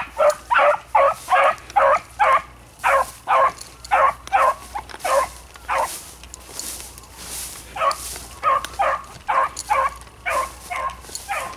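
Trailing beagles giving voice on a scent line: a run of quick, evenly spaced barks, about three a second, breaking off for a couple of seconds midway and then picking up again.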